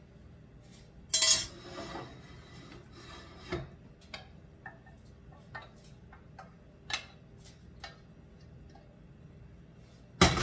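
Kitchen utensils clinking and scraping against a stainless steel pan as tomato sauce is scraped out of it into a baking dish. There is a loud clank about a second in and another near the end, with scattered light taps between.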